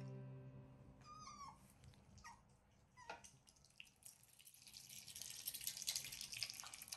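Asian small-clawed otter giving a few short, high, squeaky chirps, then a run of faint, wet smacking and clicking as an otter chews raw salmon.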